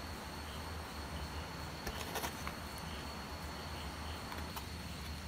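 Faint background of a steady low electrical hum and a thin high steady tone, with a few light handling clicks and rustles about two seconds in as a foam sheet is laid over the bench.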